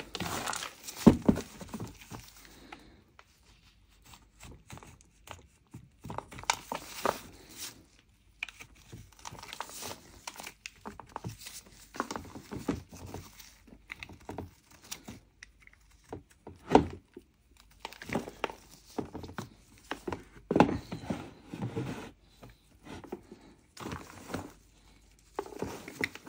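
Snap-off utility knife blade scraping dry mocha clay, shaving off crumbly flakes in irregular strokes, with a few louder, sharper scrapes.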